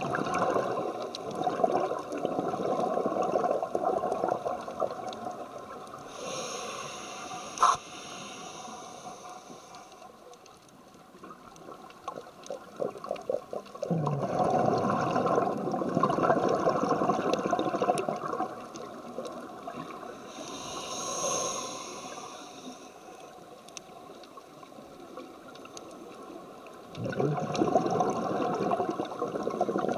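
Scuba breathing heard underwater through a regulator: long bursts of exhaled bubbles three times, alternating twice with the hiss of an inhalation through the regulator. A single sharp click comes about eight seconds in.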